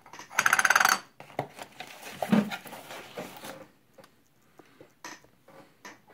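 Handling noises: a short, loud rasping burst about half a second in, then a run of light knocks and clinks.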